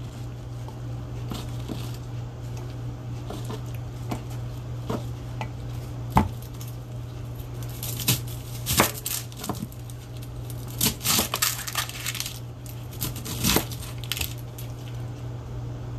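Chef's knife cutting and peeling an onion on a plastic cutting board: a few sharp knocks of the blade on the board and rustling of papery onion skin, over a steady low hum.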